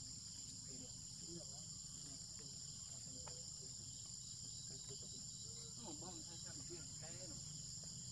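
Steady chorus of insects, a constant high-pitched trilling, with faint scattered chirps underneath.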